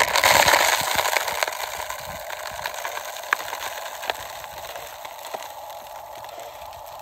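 Gravel and small stones sliding out of a tipping toy dump truck's bed and pouring down a rock face. It is loudest in the first second or so, then eases to a steady hissing trickle with a few sharp clicks of single stones striking.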